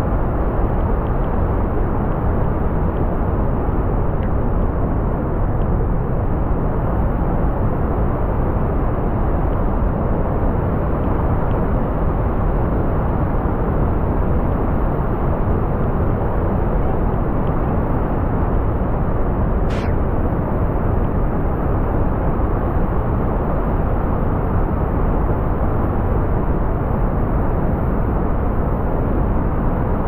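Steady, loud roar of the Iguazu Falls at the Devil's Throat, heard close from the walkway, with the river in flood.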